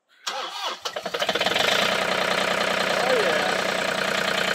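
John Deere 3320 compact tractor's three-cylinder diesel engine cold-started after sitting a month: the starter cranks briefly, the engine catches about a second in and settles into a steady idle.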